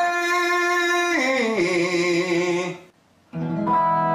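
A man singing an open vowel over a strummed acoustic guitar as a vocal exercise: he holds a high note, steps down a descending scale to a low note about a second in, breaks off briefly near the three-second mark, then starts a new low note.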